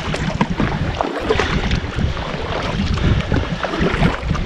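Kayak paddles dipping and splashing in calm sea water, over a low rumble of wind on the microphone.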